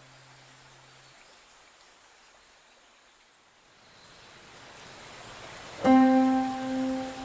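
Faint hiss with a low hum that stops about a second in, then background music coming in loudly near the end on a held note.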